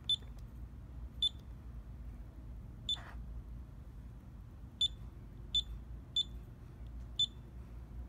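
Mitsubishi GOT2000 HMI touchscreen giving a short, high beep for each key pressed on its on-screen keyboard as a login name and password are typed. There are seven beeps, unevenly spaced and coming faster in the second half.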